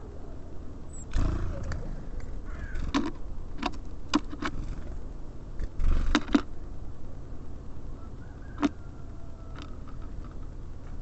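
Small birds such as tits and sparrows pecking at seed and landing on a bird feeder: sharp taps, some in quick clusters, with two louder thumps, one about a second in and one midway, over a steady low rumble.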